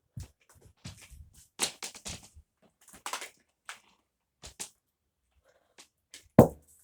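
Upright vacuum cleaner being handled, with irregular clicks and knocks and one loud thump near the end; its motor is not running.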